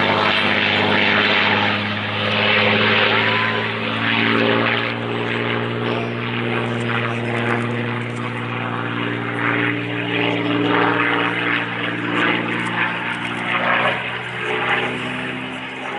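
Supermarine Spitfire Mk XVI's Packard Merlin V-12 engine, a steady deep drone as the fighter flies its display. The sound eases off slightly toward the end.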